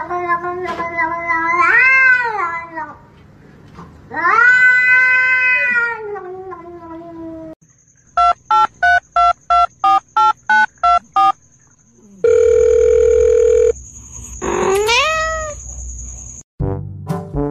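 A cat meowing in two long, drawn-out meows, then a run of about ten short electronic beeps at about three a second, followed by a held electronic tone and a quick rising meow-like call.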